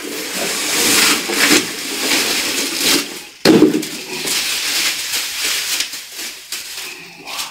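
Plastic packaging and bubble wrap crinkling and rustling as a long plastering spatula is pulled out of its wrapping, with a sudden thump about three and a half seconds in.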